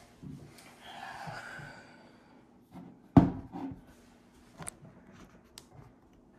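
Handling of a Leatherman Juice XE6 multitool: rustling, one sharp knock about three seconds in, then two light clicks.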